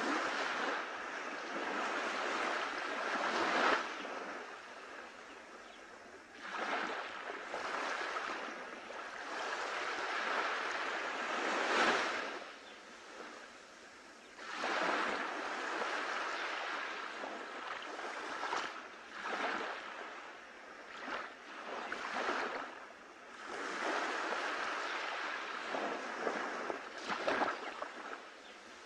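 Shallow surf washing up a sandy beach and draining back, in surges every few seconds that each build and then fall away.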